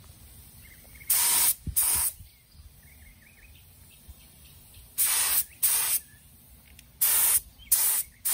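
Gravity-feed compressed-air paint spray gun hissing in short trigger-pulled bursts: three pairs of bursts, each under half a second, with a few seconds between pairs.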